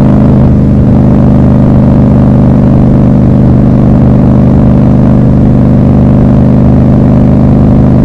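Triumph Scrambler 1200 XC's 1200 cc parallel-twin engine running steadily at an even cruising speed, its pitch holding level with no revving up or down.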